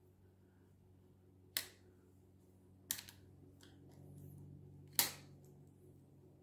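Three sharp clicks about a second and a half apart, with a few fainter ticks, as a small hand tool works on an e-bike's thumb-throttle clamp on the handlebar. A faint low hum runs underneath.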